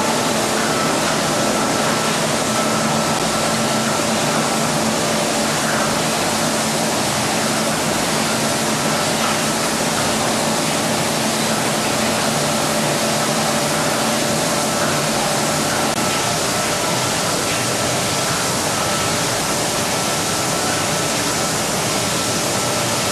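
MS 6000 jar washing machine running: a steady rush of water and machine noise with a faint steady whine through it.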